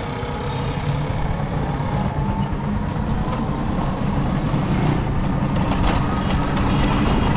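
A motor vehicle engine running steadily with road noise, growing slightly louder.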